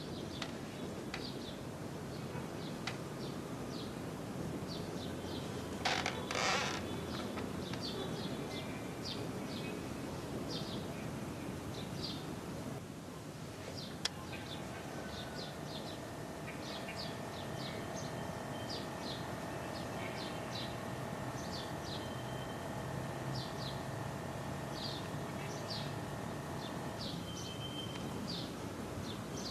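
Steady background hiss with many short, high chirps every half second to a second. There is a brief louder sound about six seconds in, and a faint steady hum from about halfway to near the end.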